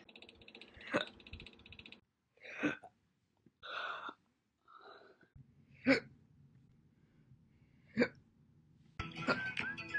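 A woman hiccuping: single short, sharp hiccups, four of them a couple of seconds apart, with soft breaths between. Music starts near the end.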